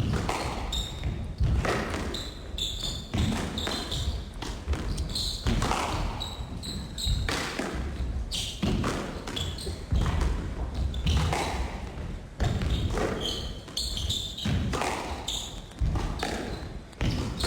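A squash rally: the ball struck by rackets and hitting the court walls in a quick, irregular run of sharp hits.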